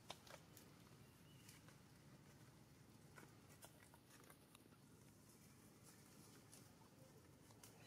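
Near silence: a faint outdoor background with a few scattered soft clicks.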